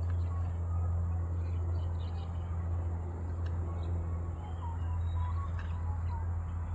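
A steady low hum with faint, short bird chirps scattered over it.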